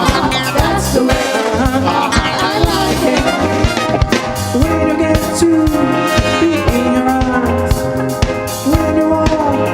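Upbeat pop music with a steady drum-kit beat and brass, an instrumental stretch without clear vocals.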